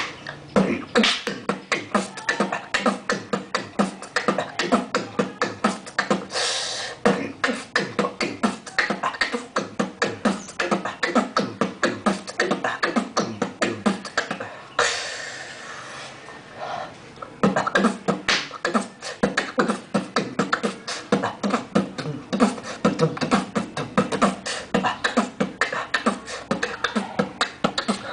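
Solo beatboxing: fast, dense mouth-made drum patterns of kick, snare and hi-hat strokes. Two longer hissing sounds come about a third and halfway through, with a short lull just after the second.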